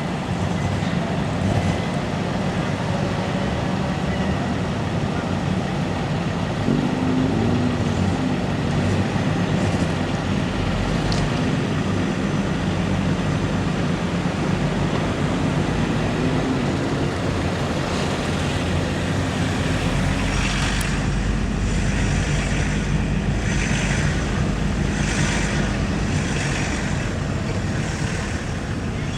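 Vehicle engine running steadily with road and deck noise while driving off a car ferry. About two-thirds of the way through a deeper rumble joins in, with a run of short rattling bursts about one a second.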